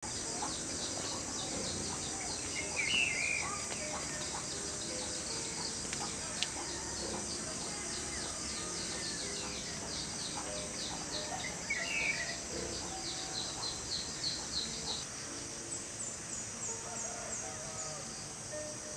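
Outdoor ambience: a steady, high chorus of insects pulsing several times a second, with a bird calling twice.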